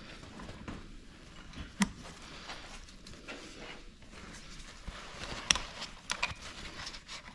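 Quiet handling noise with a few sharp clicks, one about two seconds in and a cluster between five and six and a half seconds in: small hand tools and the piston's wrist-pin C-clip being worked into place.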